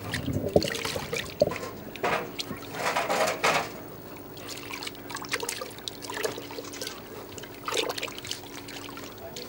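Water sloshing and trickling inside a clay pot, in irregular bursts that are strongest in the first few seconds.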